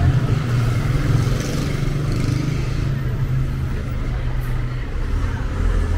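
Road traffic: a vehicle engine running close by with a steady low rumble, over general street noise.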